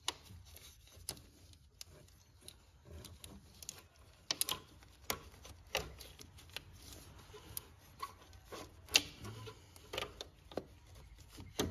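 Irregular light clicks and taps of a serpentine belt being worked by hand around the crank pulley and tensioner, belt and fingers knocking against the engine's metal parts. The sharpest knock comes about nine seconds in.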